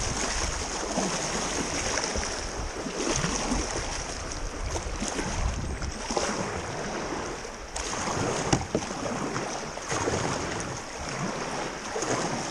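Kayak paddle blades dipping and splashing into a fast-flowing river, a stroke every second or two, over the steady rush of the current around the hull.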